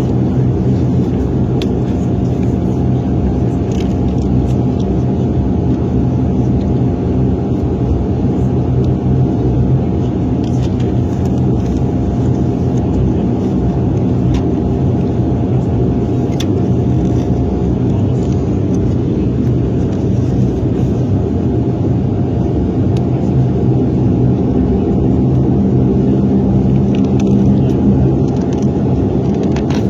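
Steady cabin drone of a De Havilland Dash 8 Q400's two Pratt & Whitney PW150A turboprops and six-bladed propellers, a low rumble with a constant propeller hum, heard from inside the passenger cabin in flight.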